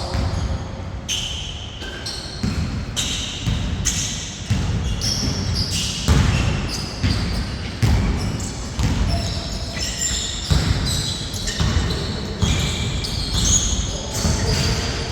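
Basketball bouncing on a court in irregular thuds, about one or two a second, mixed with short high squeaks of sneakers on the floor.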